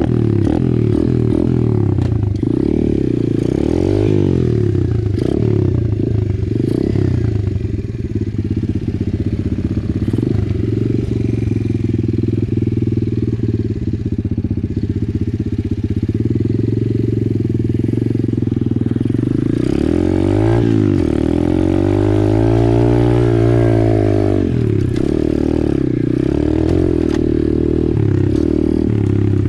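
Apollo RFZ 125cc pit bike's single-cylinder four-stroke engine running under the rider, its revs rising and falling over and over as he rides over gravel. About twenty seconds in it revs up in one long climb and drops back down.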